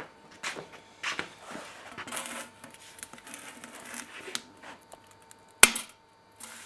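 Mirror glass being handled and broken by hand: glass scraping and knocking, then one sharp crack about five and a half seconds in as the sheet snaps along its CNC-scored line.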